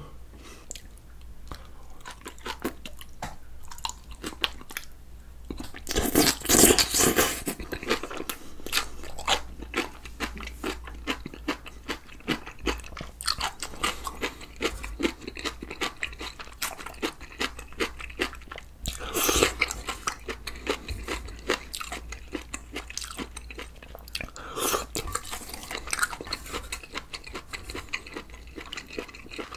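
A person chewing and crunching food, with wet, crackly bites throughout and three louder spells of crunching.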